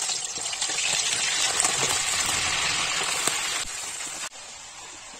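Chicken pieces sizzling loudly in hot oil in a wok as they are stirred with a steel spatula. The sizzle eases about three and a half seconds in, then drops further to a softer frying hiss.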